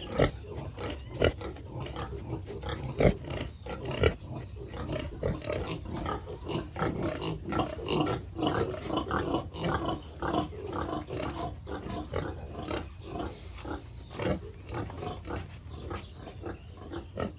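Pigs grunting on and off without a break. Four sharp knocks come in the first four seconds, the loudest about three seconds in.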